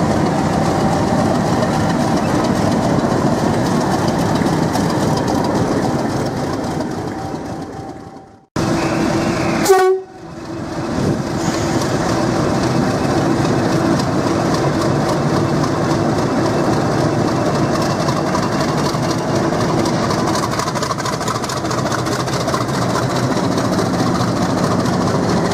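Heavy diesel locomotive engine running with a steady note. It fades out and breaks off about eight seconds in, then picks up again and runs on steadily.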